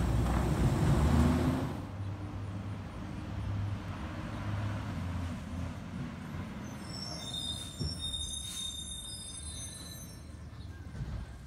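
Autocar ACX garbage truck's CNG engine running loudly as the truck pulls away for the first two seconds, then a quieter steady engine rumble from farther off. About seven seconds in, a high-pitched squeal lasts about two seconds as the truck brakes toward the carts.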